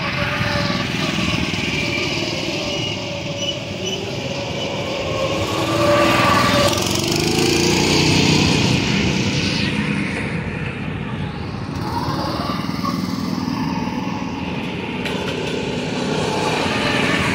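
Small go-kart engine running as the kart laps the track, getting louder and bending in pitch as it passes close by about six seconds in.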